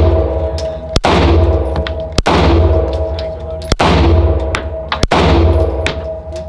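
Handgun fired in slow, regular succession, about one shot every second and a half, each report echoing and dying away in the indoor range. Fainter cracks can be heard between the shots.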